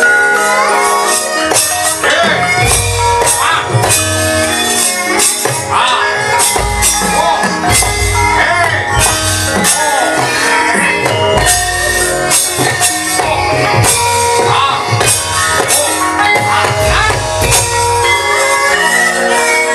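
Javanese gamelan music, with held metallophone tones, regular percussion strokes and a wavering sung voice over it.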